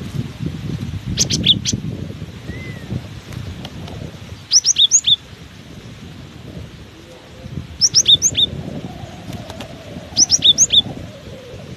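Cinereous tit (gelatik batu) singing: four short phrases of quick high whistled notes, about three seconds apart. Wind rumbles on the microphone throughout.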